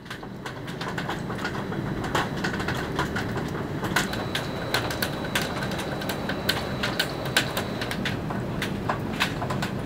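Rain falling on wet pavement and a puddle: a steady hiss with irregular sharp splashes of single drops close by. It fades in at the start.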